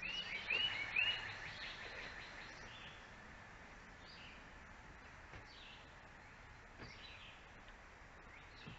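Songbird calling: a quick run of four arching chirps in the first second or so, then single fainter down-slurred notes every second or two, over a steady outdoor background hiss.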